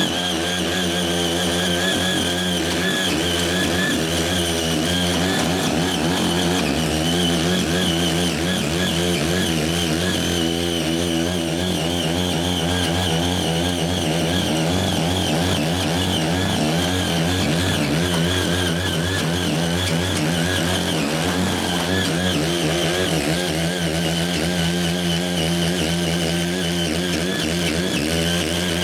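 Small engine of a Ching Yee CY80 mini cultivator running steadily under load as its six rotary tines dig and till weedy ground, the pitch wavering slightly as the load changes.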